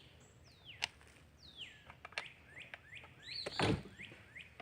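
A bird singing a series of short notes that slide downward in pitch, over scattered sharp clicks and a thump about three and a half seconds in, from hand work on a chainsaw's bar nuts.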